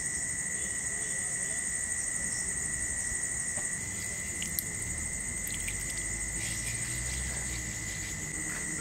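Insects calling steadily at two high pitches, an unbroken drone. Around the middle there are a few faint clicks and wet splashes as a hand squeezes ground paste into water in a clay bowl.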